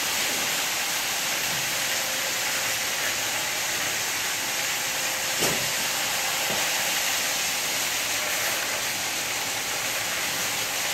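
Walk-behind power trowel running steadily as its blades work over the wet terrazzo floor, a constant even hiss-like noise. One short knock about five and a half seconds in.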